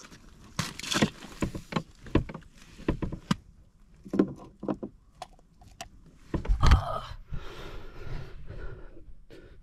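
Handling noises as a person shifts about and picks up a freshly caught crappie: scattered clicks, knocks and rustling, with one heavier thump about two-thirds of the way through.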